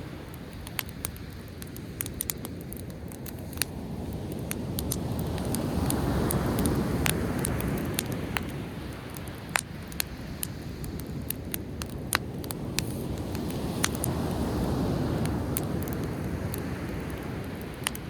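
A driftwood campfire crackling with frequent sharp pops and snaps, over the low rush of sea waves that swells twice, building and falling back.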